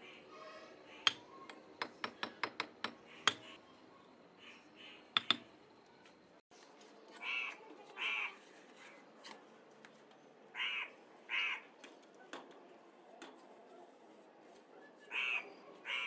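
Sharp taps of a mason's trowel on brick, several in quick succession in the first few seconds. Then a crow caws in pairs, two short caws at a time, three times.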